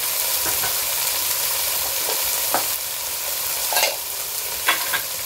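Diced carrot, capsicum and green peas frying in a chilli-garlic onion masala in a nonstick pan: a steady sizzle, with a few short clicks scattered through it.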